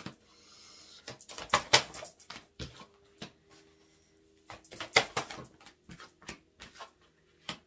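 Oracle cards being handled on a table: a run of short clicks and rustles, busiest about one and a half seconds in and again about five seconds in.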